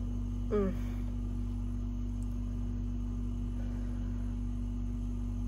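A steady low hum holding a constant tone, with one brief vocal sound from the woman about half a second in.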